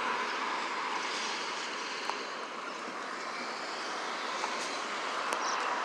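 Street traffic: a steady hiss of passing cars, their tyres on the road, swelling again near the end.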